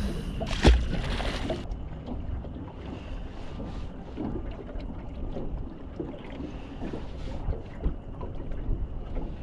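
A striped bass splashes into the river about half a second in as it is tossed back over the side of a small boat. Then wind buffets the microphone in a low rumble, with small waves lapping around the boat.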